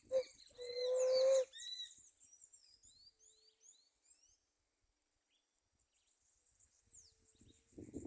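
Birds calling. Just after the start a short low note is followed by a loud, held low hooting call lasting about a second, then a run of quick high chirps and short falling whistles that fades to near quiet.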